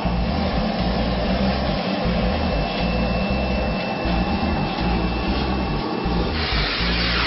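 Vacuum cleaner running steadily, with a thin high motor whine over the rush of air through its hose; the hiss gets brighter about six seconds in.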